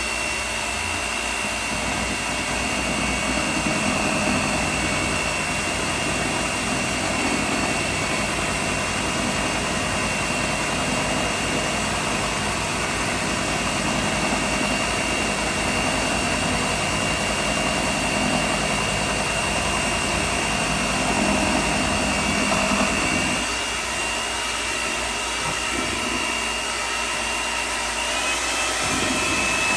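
Electric hand mixer running steadily with its twin beaters, whining at a constant pitch as it beats cream cheese in a bowl.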